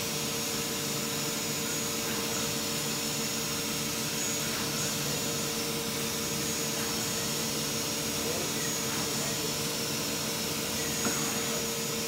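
Steady hum with a constant mid-pitched tone from a powered-up Mazak INTEGREX 200-IV multitasking CNC lathe standing idle, with one brief click near the end.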